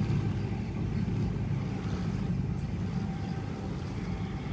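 Tangara electric multiple-unit train pulling away from the platform, a low rumble that slowly fades as it moves off.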